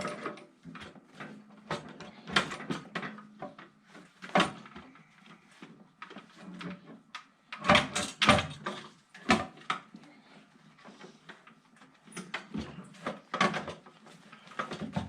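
Screwdrivers, pliers and other metal hand tools clinking and knocking as they are handled in a toolbox drawer, an irregular clatter with a louder burst of knocks about halfway through.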